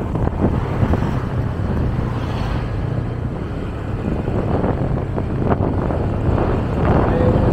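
Wind noise on the microphone over a motorbike engine running steadily while riding along a road.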